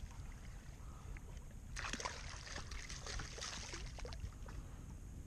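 Hooked fish thrashing and splashing at the water's surface beside a kayak. The splashes come in a burst from about two seconds in, over a low steady rumble.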